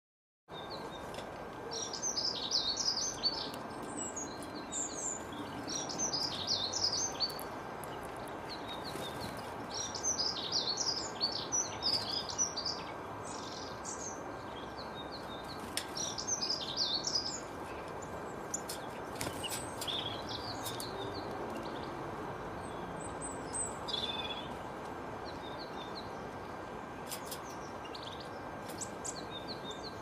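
Small songbirds chirping and twittering in quick high clusters, busiest in the first half and sparser later, over a steady background hiss with a faint high steady tone.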